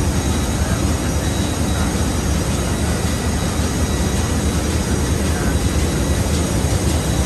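Steady, loud drone of running machinery in a ship's engine room, heaviest in the low end.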